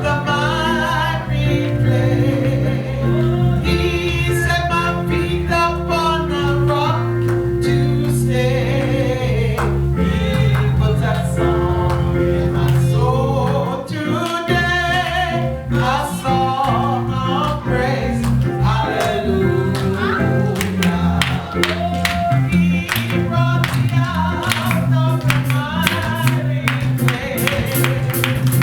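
Congregation singing a gospel praise chorus with instrumental backing, a steady beat of percussion or clapping in the second half.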